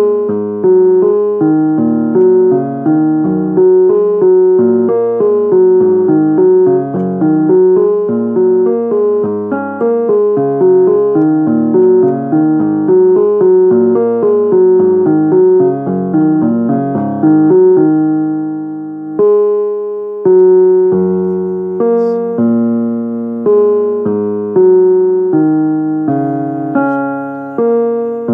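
Piano-style keyboard playing a flowing pattern of struck notes and chords, each note ringing out and fading, that slows about two-thirds of the way through into fewer, longer-held chords.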